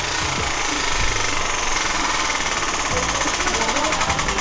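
Large prize wheel spun hard, its pointer clicking very rapidly over the pegs around the rim. The clicking starts suddenly and stays dense throughout.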